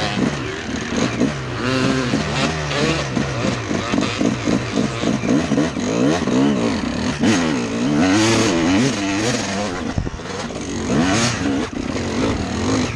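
Honda CR250R two-stroke dirt bike engine revving up and down over and over as it is ridden over rough ground.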